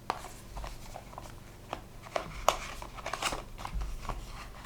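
Hands handling and opening a small product package: scattered irregular clicks, taps and crinkles.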